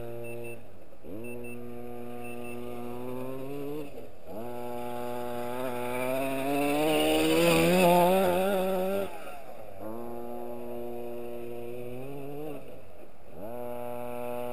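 Himoto 1/5-scale 5SC RC truck's 26cc two-stroke petrol engine revving hard and easing off as the truck is driven, its pitch dropping and climbing back about four times. It is loudest about halfway through, with a wavering pitch, as the truck passes close.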